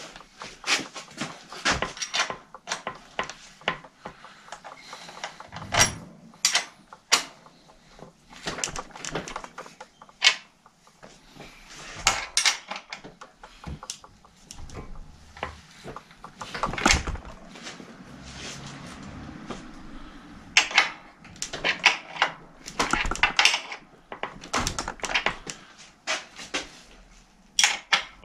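Irregular metal clinks, clicks and knocks of hand tools and bicycle parts as a rear wheel is seated in the frame and its axle fastened.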